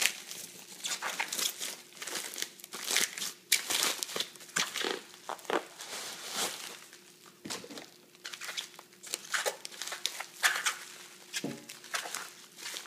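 Plastic packaging being handled and pulled apart: a plastic mailer bag and bubble wrap crinkling and rustling in irregular bursts.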